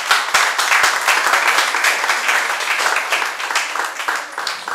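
Audience applauding, many hands clapping together, loud at first and slowly fading toward the end.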